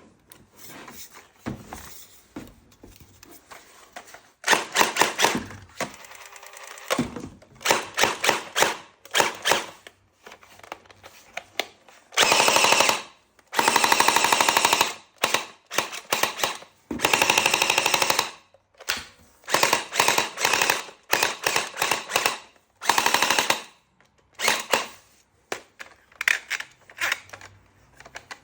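Toy M416 gun firing in short automatic bursts, each a rapid rattle of clicks lasting about a second, repeated a dozen or more times with brief pauses between.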